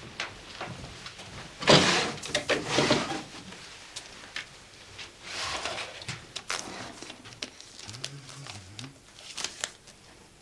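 Handling sounds in a small office: a card-index drawer taken out and carried, with rustling, scattered knocks and clicks. The loudest rustle comes about two seconds in.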